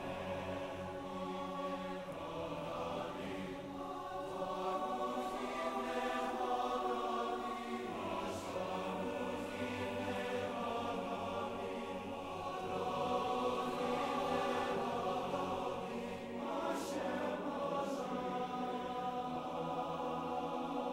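Background music: a wordless choir singing slow, sustained chords that change every few seconds.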